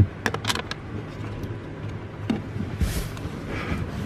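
A few small clicks and knocks as a hand works a car's accelerator pedal assembly loose from its floor mount, with a brief hiss of rustling about three seconds in, over a steady low hum.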